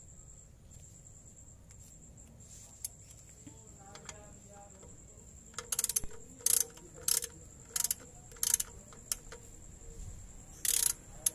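Socket ratchet tightening the oil drain plug back into the oil pan: a run of short metallic ratcheting bursts, about one every half second, starting about halfway through, with a longer burst near the end.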